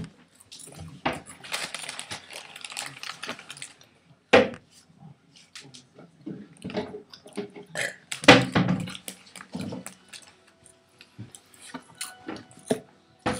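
A plastic bag rustles and crinkles amid crunchy eating noises from dry noodles, with scattered clicks. About eight seconds in comes a loud, throaty, burp-like sound.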